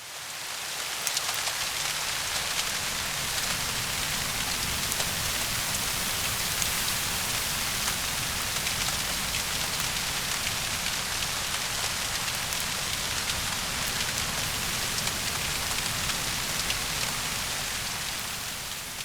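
Steady rain falling on a surface, a dense hiss with many small drop ticks, fading in at the start and fading out near the end.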